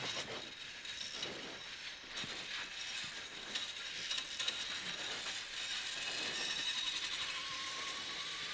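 Cabin noise of a cross-country rally car driven at speed on a dirt stage: a steady rattling hiss of the car body and gravel, with the engine faint underneath.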